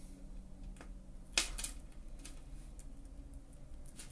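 Small metal clicks from jewellery pliers handling the bracelet's links and beads, a few faint ticks with one sharper click about a second and a half in.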